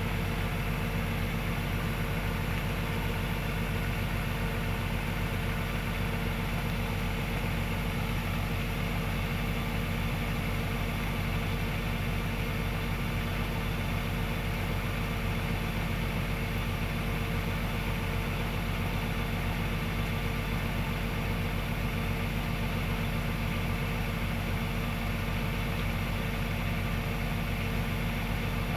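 Kubota DC105X combine harvester's diesel engine running steadily while its unloading auger works, with several steady tones and no change throughout.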